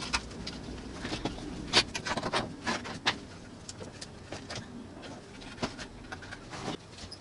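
Handling noise of a small plastic device being put back together: clicks and knocks as the plastic housing halves and stiff wire coils are moved and set down on a wooden table, busiest about two to three seconds in.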